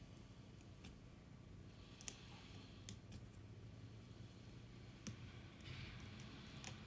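Faint scattered clicks and light scratching of a tool prying broken fragments of cracked glass off an Apple Watch screen.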